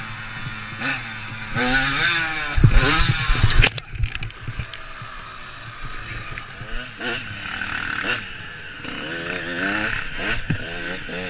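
Dirt bike engine revving up and down, with a cluster of heavy knocks and thuds about three seconds in.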